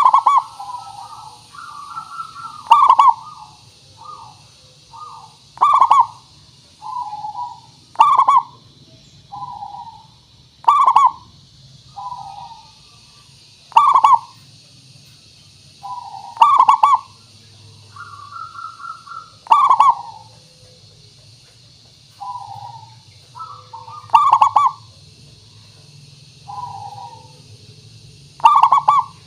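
Zebra dove (perkutut) cooing: a loud, rolling coo about every three seconds, with softer, shorter coos in between.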